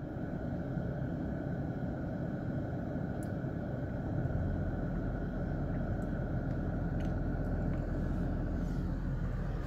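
Steady low rumble of a motor vehicle, growing a little louder about four seconds in.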